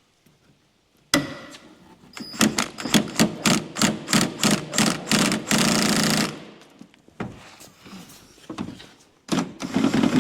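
A power tool hammering in quick, repeated strokes as it works a rusted 17mm body-to-floor-pan bolt on a VW Beetle loose. It starts suddenly about a second in, eases off for a couple of seconds, and comes back with a high whine near the end.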